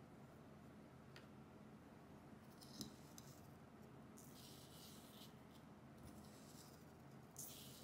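Faint hiss of sand grains sprinkled onto paper in several short pours, with a couple of light clicks in the first few seconds.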